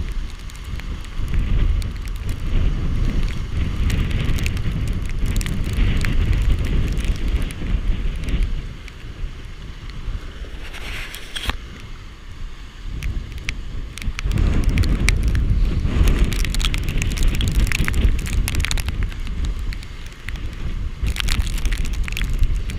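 Hurricane-force wind gusting across the microphone, a heavy rumble with a hiss of wind and rain over it, and scattered crackles. The gusts come in surges: strong at first, easing for several seconds about a third of the way in, then building again.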